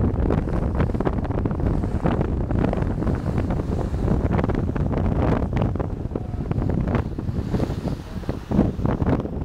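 Wind buffeting the microphone on the deck of a sailing yacht under way, over the rush of water and waves along the hull.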